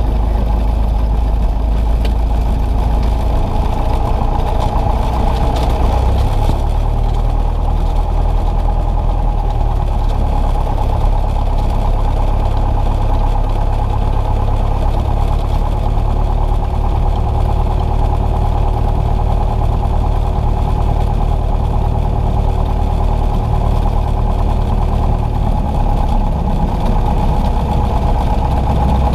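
Cessna 172's piston engine and propeller running at low taxi power, heard from inside the cockpit: a steady drone whose note shifts slightly about six seconds in.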